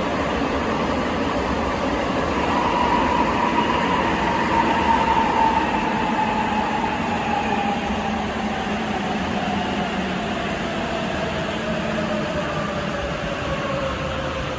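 Sapporo Municipal Subway 8000 series rubber-tyred train heard from inside the car: steady running noise with a traction motor whine that falls steadily in pitch from about four seconds in as the train slows for the next station.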